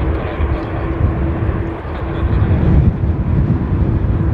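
Boeing 787-9 Dreamliner's Rolls-Royce Trent 1000 turbofans running at low taxi thrust as the airliner rolls onto the runway: a steady engine hum over a heavy low rumble.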